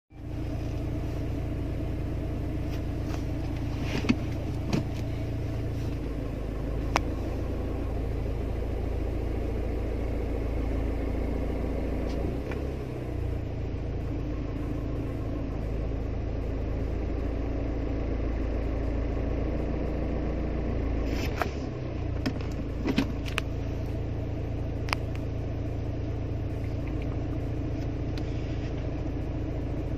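Car engine idling with the manual gearbox in neutral, with a friction noise from the gearbox and gear lever. A few sharp clicks break through the steady hum.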